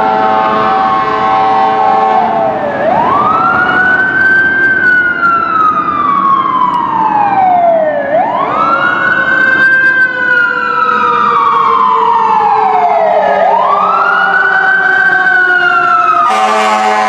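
Fire engine siren wailing in slow rises and falls, about one every five seconds. The engine's air horn blasts steadily over it through the first two seconds and cuts in again near the end.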